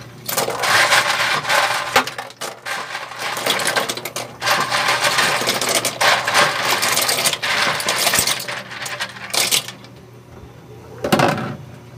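Bagongon sea snail shells rattling and clattering as they are poured from a plastic bowl into a pot, a loud continuous clatter with a few short breaks that stops after about nine and a half seconds. One more short clatter comes near the end.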